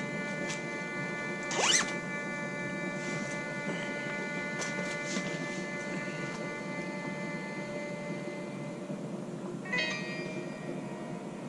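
A jacket zipper pulled up once, a quick rising zip about two seconds in, over background music with long held notes that change near the end.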